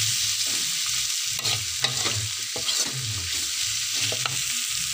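Diced tempe sizzling in oil in a steel wok while a metal slotted spatula stirs and scrapes through it, with several sharp clacks of the spatula against the pan.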